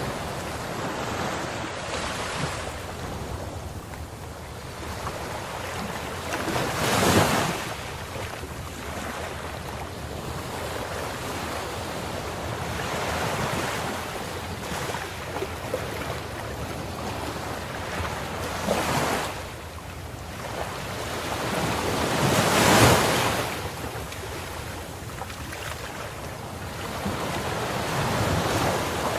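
Ocean waves breaking on the shore in a continuous wash of surf, with the strongest breakers surging about 7, 19 and 23 seconds in. Some wind noise on the microphone.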